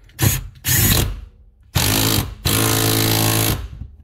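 Cordless impact tool running in four short bursts, the last and longest about a second, snugging down seat-bracket bolts.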